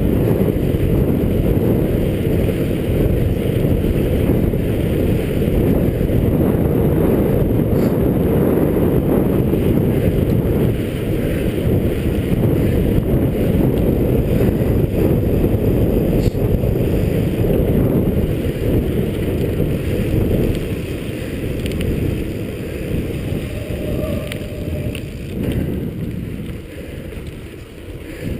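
Low, steady rumble of wind buffeting a chest-mounted GoPro's microphone while riding a mountain bike. It eases off over the last several seconds.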